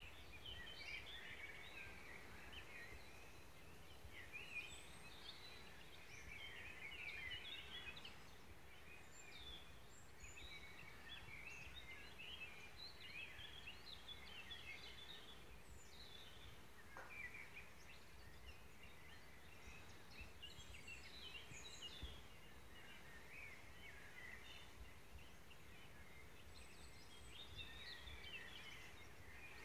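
Faint chorus of songbirds: many short chirps and twittering calls overlapping throughout, over a low background rumble.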